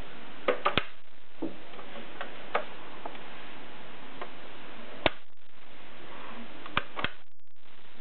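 Mercedes Selekta manual typewriter mechanism being handled, giving scattered sharp mechanical clicks: three in quick succession about half a second in, a few single clicks after that, and two close together near the end. A steady hiss runs underneath.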